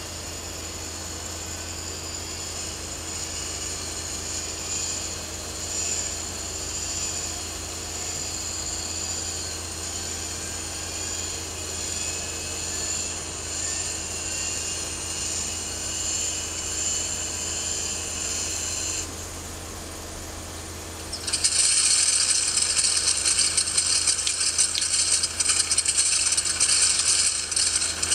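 Recording of a Mitsubishi Zero Type 52's inertia starter spinning up, a steady whine rising slowly in pitch for about 19 seconds, played through a small speaker. It drops away, and about 21 seconds in the Nakajima Sakae radial engine fires and runs with a loud, rattling clatter.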